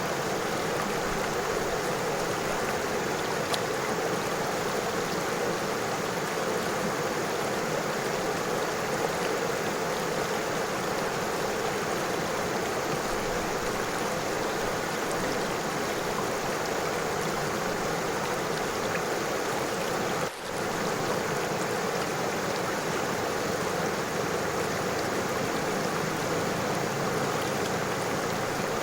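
River water flowing and rippling over stones, a steady, even rush. There is one brief dropout about twenty seconds in.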